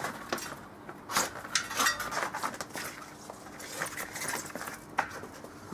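Old inner tube being pulled out of a bicycle tyre and wheel rim: irregular clicks, clinks and rubbing of rubber against metal.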